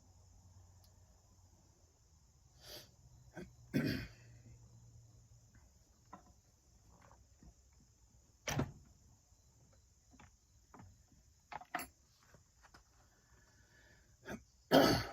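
Scattered clicks and knocks of tools and trimmer parts being handled, the loudest just before the end, over a steady high chirring of insects.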